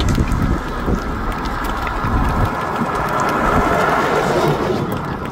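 Pickup truck towing a trailer driving past on a wet, hail-covered road: its low engine rumble fades in the first couple of seconds while its tyres hiss over the wet pavement and hailstones. Scattered sharp clicks are heard through the hiss.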